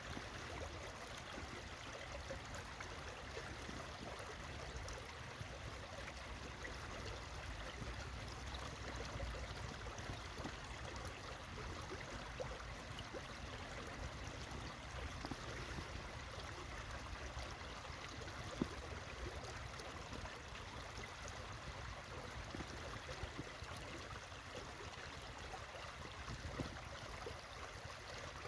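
Stream water flowing steadily, with a low rumble underneath and a single brief tick about two-thirds of the way through.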